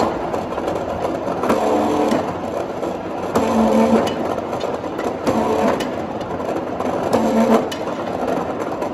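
Wire-pointing machine for a cold drawing line running, its grooved rolls turning as a steel wire rod is fed in and out to reduce its tip. About every two seconds a metallic clank is followed by a short pitched hum, over a steady machine noise.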